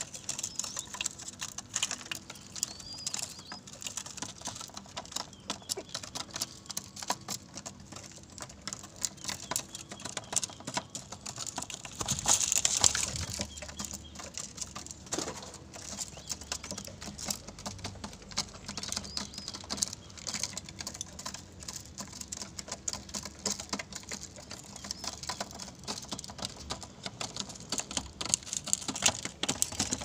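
Collared doves pecking at cracked corn on concrete: a dense, rapid pattering of many beak taps. About twelve seconds in there is a louder rustling flurry.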